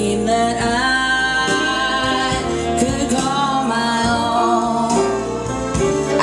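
Background music: a song with a singing voice holding long notes over instrumental accompaniment.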